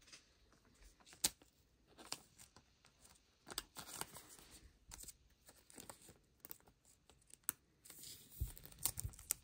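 Hands handling a trading card and plastic card holders: a sharp click about a second in, scattered soft clicks and plastic rustling, and a few dull knocks near the end.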